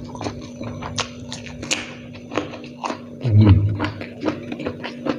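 Close-up chewing and crunching of a mouthful of rice and raw round eggplant eaten by hand, with many irregular crisp clicks and wet mouth sounds. About three and a half seconds in, a brief low 'mm' hum from the eater, falling in pitch, is the loudest sound.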